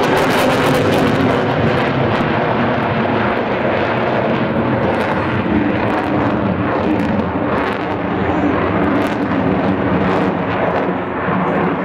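Canard delta-wing fighter jet's engine noise, loud and steady, with a crackling edge, as the jet flies display manoeuvres overhead.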